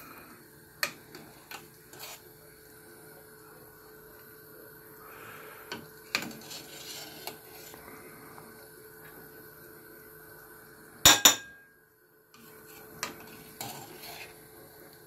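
A slotted metal spoon clinking against a steel stockpot and a plate while skimming foam off boiling chicken, in scattered knocks with the loudest, a quick double clink, about eleven seconds in.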